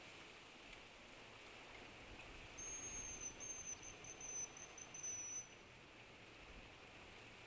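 A high, thin bird song begins about two and a half seconds in and lasts about three seconds. It comes in short broken phrases that fall slightly in pitch, over a faint steady hiss of outdoor ambience.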